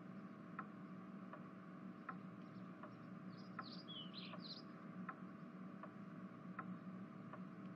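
Faint background ambience with an even ticking, a little more than one tick a second, and a few quick high bird-like chirps about three and a half to four and a half seconds in.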